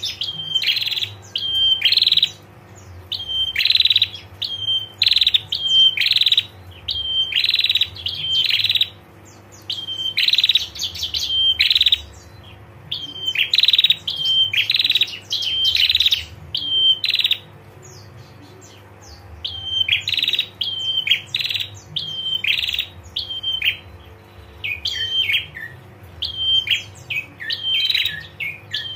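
Prinia (prenjak) calling in a rapid, high-pitched chattering trill, the 'ngetir' call, in phrases repeated about once a second with a few short pauses.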